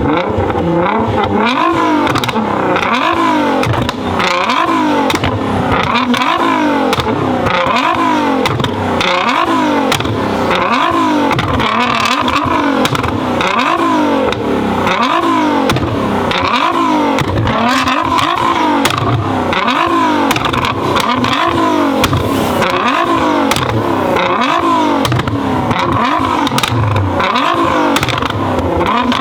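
Tuned Nissan GT-R R35's twin-turbo V6 being revved over and over, its pitch rising and falling about once a second, with exhaust pops and bangs crackling throughout.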